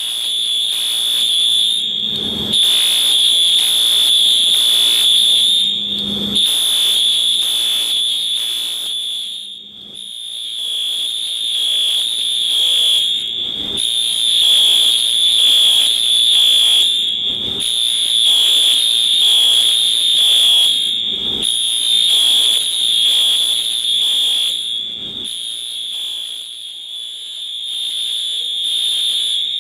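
Building fire alarm sounding during a system test: a loud, steady high-pitched tone that breaks off briefly about every four seconds.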